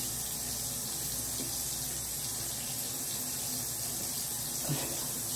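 Bathroom sink faucet running steadily, its stream of water splashing into the basin.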